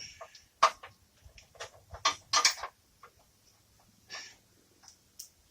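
Scattered metallic clicks and knocks of a bolt and hardware being fiddled into a 6 mm steel winch cradle bracket, with a few sharp taps, the loudest about half a second and two seconds in.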